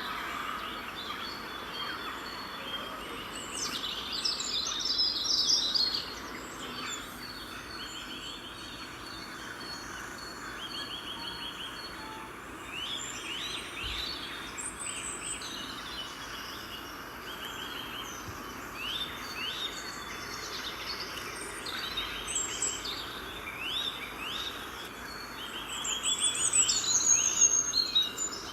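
Several small birds chirping and trilling over a steady background hiss, with busier, louder spells of calls near the start and near the end.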